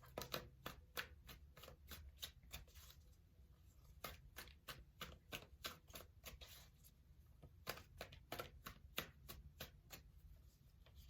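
A tarot deck being shuffled by hand: a faint run of quick, sharp card flicks and taps, a few a second, with short pauses.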